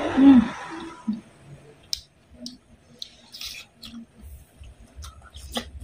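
Close-up mouth sounds of eating by hand: a wet slurping bite of boiled squash and curried rice with a brief hum at the start, then scattered lip smacks and chewing clicks.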